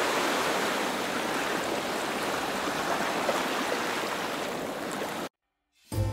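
A steady rushing hiss, with no clear tone in it, that cuts off abruptly about five seconds in; music begins just before the end.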